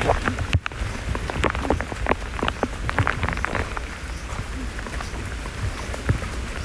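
Heavy storm rain falling, with many drops striking close by in quick, irregular taps over a steady hiss and low rumble.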